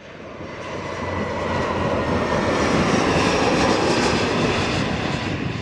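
Aircraft engine noise of a plane passing, swelling to a peak about three to four seconds in and then fading away.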